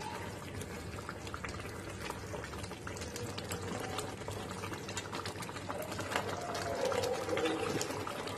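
Thick prawn masala gravy boiling hard in an aluminium pot, a steady bubbling with many small pops. Jumbo tiger prawns are being turned over in it with a wooden spoon.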